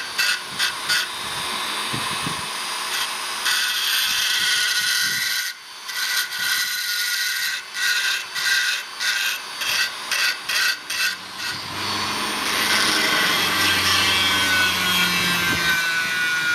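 Hand-held rotary tool grinding out the bore of a steel exhaust header flange, porting it to match the cylinder's exhaust port. The grinding starts and stops in short bursts over the first few seconds, then runs in longer steady passes.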